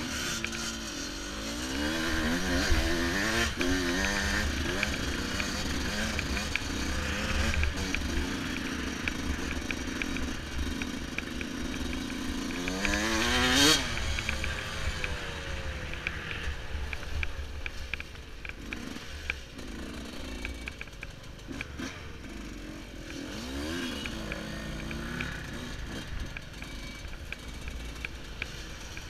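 Yamaha YZ125 two-stroke dirt bike engine revving up and easing off again and again while riding. Its loudest rising rev comes about halfway through, and it runs somewhat quieter in the last third.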